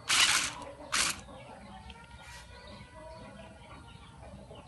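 Toy RC stunt car's small electric motors and plastic wheels whirring against a woven mat in short bursts: a half-second burst at the start and a shorter one about a second in, then only faint sound.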